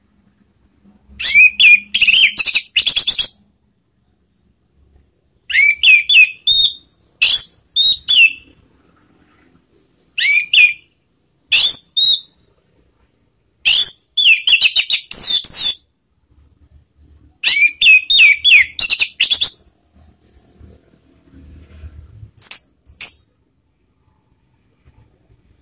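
Orange-headed thrush (anis merah) singing: about eight short phrases of rapid, high, varied whistled notes, each one to two seconds long, separated by pauses. The last phrase, near the end, is just two short notes.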